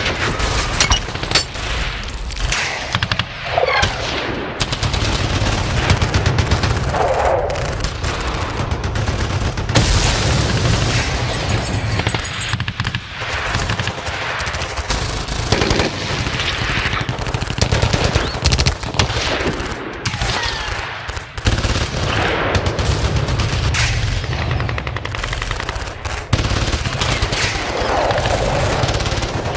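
Battle sound effect: dense, continuous gunfire, with rapid machine-gun bursts and single shots overlapping.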